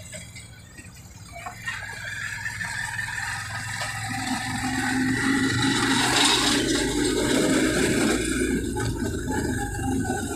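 Engine and road noise of a moving vehicle, heard from on board. It starts quieter, then swells into a steady rumble about four seconds in as the vehicle gets going.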